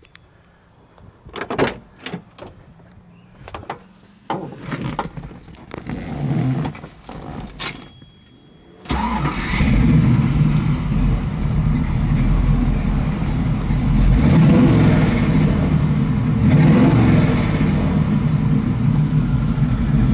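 A few clicks and knocks, then a ZZ383 stroker crate V8 in a 1973 Chevrolet Camaro Z28 starts abruptly about nine seconds in and runs at a loud, steady idle.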